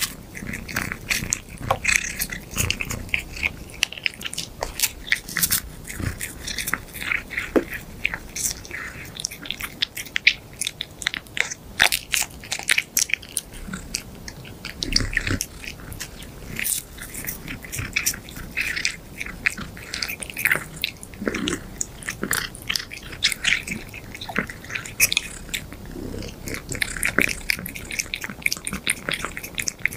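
A cat biting and chewing a biscuit-type pet treat close to the microphone: a dense, irregular run of crisp crunches and mouth clicks.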